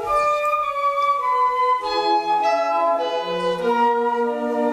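Flute quartet of two concert flutes, alto flute and bass flute, with a B-flat clarinet, playing a classical chamber piece. Several held notes overlap and move to new pitches every half second or so.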